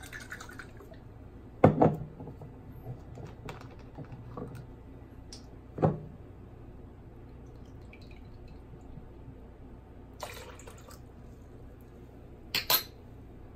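Apple cider vinegar poured from a small metal jigger into a glass measuring cup of water and vinegar, among knocks and clinks of the jigger and bottle being handled on the counter. A sharp knock comes about two seconds in, another near six seconds, and two quick clicks near the end.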